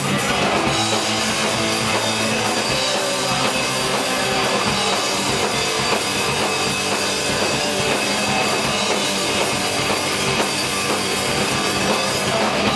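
Live rock band playing loud and full: electric guitars and bass over a drum kit, steady throughout.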